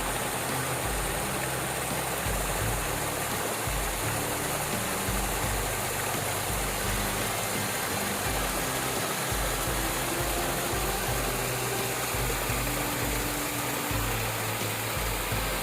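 Steady rush of flowing creek water, with soft background music and its low notes underneath.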